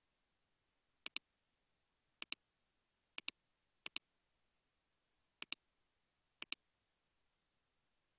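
Computer mouse button clicking six times at uneven intervals, each click a sharp press followed at once by its release.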